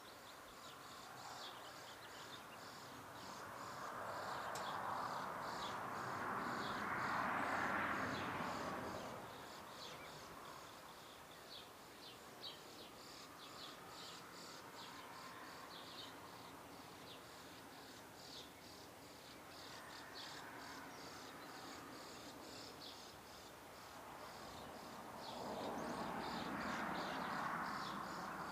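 Outdoor ambience: a steady train of short, high chirps repeating evenly a couple of times a second, from insects or small birds. A soft rushing noise swells and fades twice, once about a third of the way in and again near the end.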